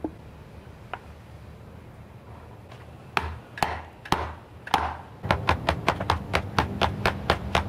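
A metal trimmer shaft tube, held by its handle, knocked down again and again onto a bushing that stands on a wooden stump, forcing the press-fit bushing into the tube. A few separate knocks come about three seconds in, then a quick run of about four or five knocks a second.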